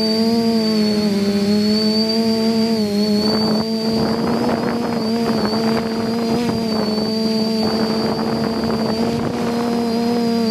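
Multirotor drone's motors and propellers humming steadily on the onboard camera, with a thin high whine above the hum; the pitch sags slightly about a second in and comes back. From about three seconds in until near the end, a gusty wind rush buffets the microphone over the hum.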